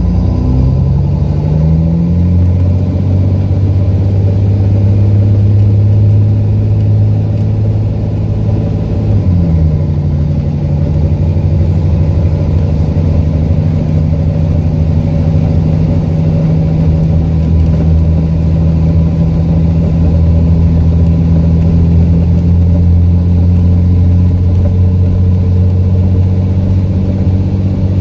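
The engine of an ADL Enviro400 double-decker bus with a blown exhaust, heard from inside the bus. It pulls away, rising in pitch over the first couple of seconds, then drops in pitch about nine seconds in as the Voith automatic gearbox changes up. After that it runs loud and steady at cruising speed.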